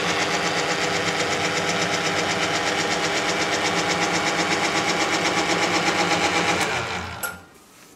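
Thompson boring bar running in return gear, its motor and gearing giving a steady pitched drone with a fast even pulse as the boring bar powers back up out of the cylinder bore. It winds down and stops about seven seconds in.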